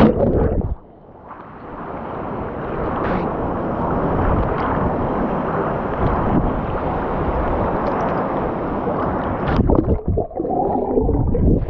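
Steady rushing roar of a waterfall about 100 feet high, with a brief drop in the noise about a second in.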